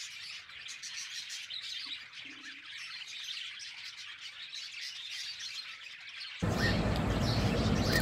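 Budgerigar chicks chirping with thin, high-pitched chirps. A louder rustling comes in near the end.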